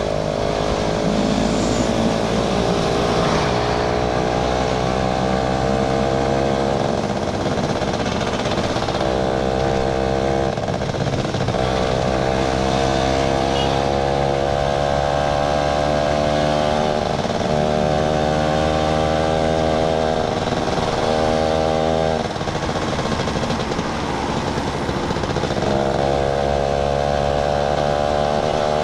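Yamaha SS motorcycle engine running while riding, its pitch rising slowly and then falling back several times.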